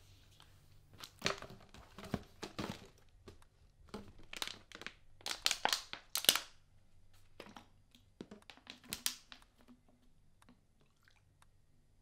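Handling noise: irregular rustles and crinkles with scattered sharp clicks, in several clusters and loudest a little past the middle.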